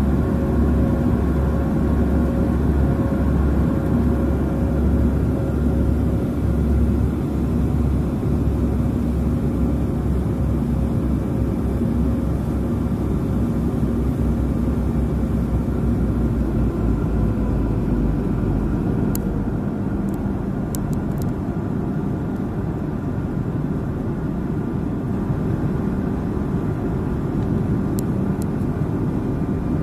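Jet airliner cabin noise in flight: a steady rush of engines and airflow with a low hum, heard from a window seat over the wing. The deepest rumble eases about two-thirds of the way through.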